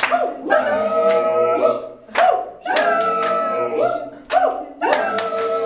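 A group of voices singing together unaccompanied, with sharp hand claps between phrases.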